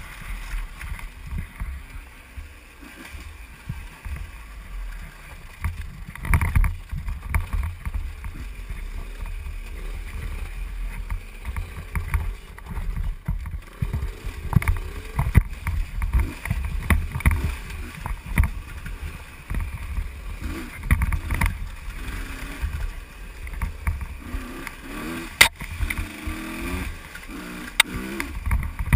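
Two-stroke enduro motorcycle ridden over a rough dirt trail, heard from a helmet camera: engine revving, with wind buffeting the microphone and uneven low thumps from the bumpy ground. Two sharp clicks near the end.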